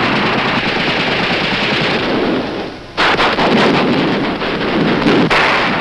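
Gunfire: rapid, continuous shooting in a dense crackling rush, with a fresh, sharper burst of quick shots starting about three seconds in.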